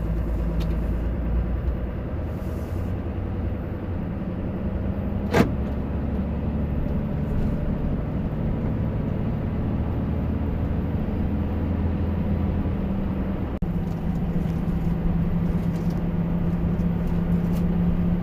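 Engine and road noise heard from inside a 2015 Ram 3500 pickup's cab while driving, with the low engine tone shifting in pitch a few times. A single sharp click comes about five seconds in.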